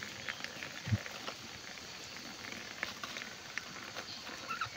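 Food simmering over an open wood fire: a faint steady hiss with scattered small crackles and pops, and a soft knock about a second in.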